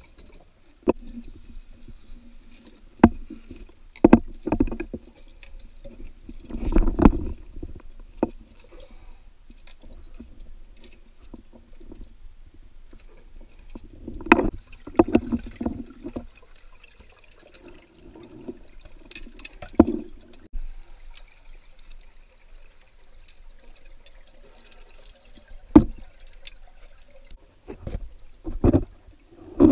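Scuba diver's breathing heard underwater: exhaled bubbles rush out in bursts every few seconds, with a few sharp knocks between them and a faint steady high tone.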